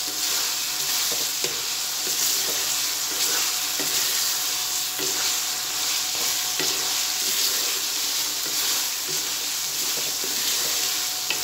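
Diced tinda (apple gourd) sizzling in oil and masala in a metal wok as a spatula stirs them, with a steady sizzle and scattered knocks and scrapes of the spatula against the pan.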